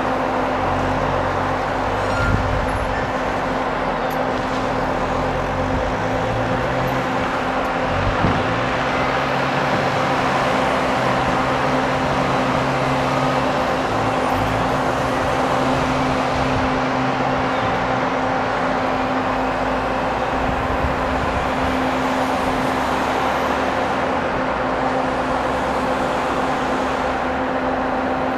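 Tunnel ventilation fan running with a steady drone and a constant hum, while a wheel loader's diesel engine works underneath, its pitch shifting up and down through the first two-thirds before it drops away.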